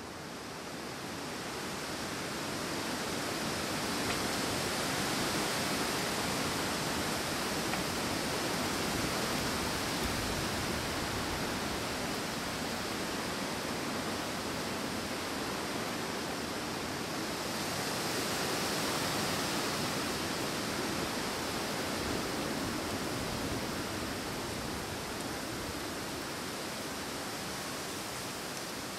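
Wind blowing through forest trees: a steady rushing that builds over the first few seconds, swells again around the middle, and eases slightly toward the end.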